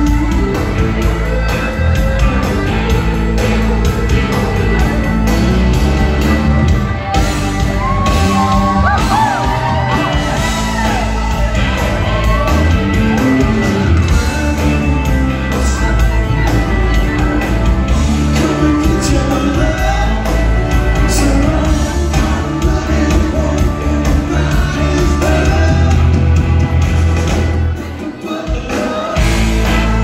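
Live rock band playing loud in a large hall, heard from among the crowd: electric guitar, bass and drums with singing, and shouts and whoops from the audience. The band briefly drops out near the end before coming back in.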